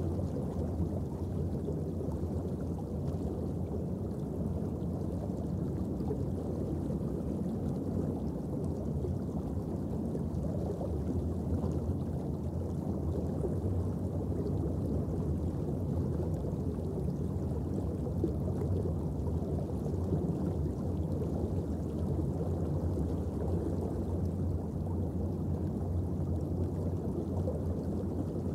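Steady underwater ambient noise: a low rumble and wash of water with no distinct events.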